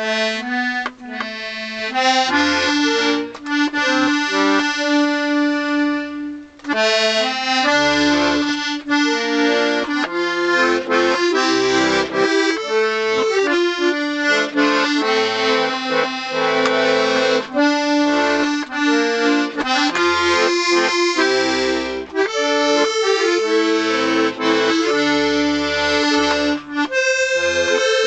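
Scarlatti 24-bass piano accordion being played: a melody with chords on the treble side over a rhythmic bass-button accompaniment, with a rich tremolo sound. Its reeds have just been refitted and are not yet tuned.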